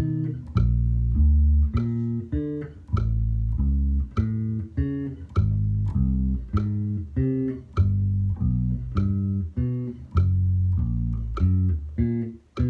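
Bass guitar playing a fretting-hand finger drill with 2-1-4-3 fingering: single plucked notes one after another, about two a second, each ringing until the next.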